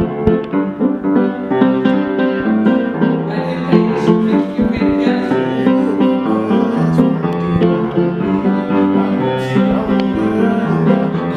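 Instrumental music with keyboard chords and no voice.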